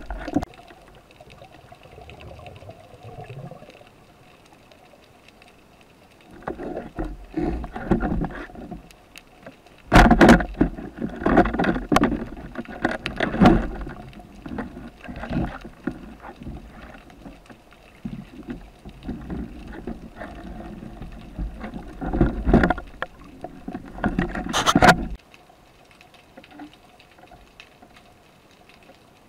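Water sloshing and bubbling around an underwater camera as a spearfisherman swims and dives, in irregular bursts mixed with sharp clicks and knocks. The bursts come and go every few seconds and die down to a low hiss near the end.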